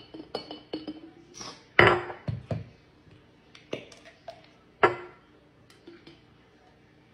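A glass mason jar knocked and set down on a granite countertop: two hard knocks, about 2 and 5 seconds in, with lighter clinks and clicks from the jar and plastic squeeze-bottle caps being handled between them.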